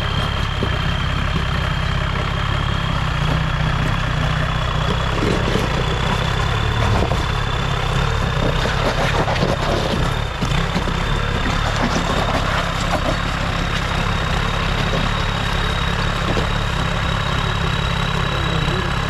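Cummins diesel engine of an off-road truck running steadily at low revs. A thin high whine above it slowly rises in pitch throughout.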